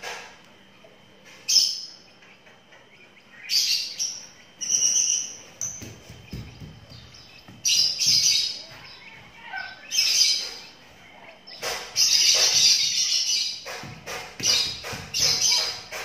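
Twelve-day-old lovebird chick giving short, rasping chirps again and again, with a longer run of calls about twelve seconds in.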